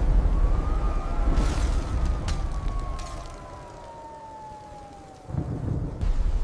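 Thunderstorm rumble with a sharp crack or two of thunder in the first few seconds. Over it a siren-like tone slides slowly down in pitch for about five seconds. The rumble fades, then surges back about five seconds in.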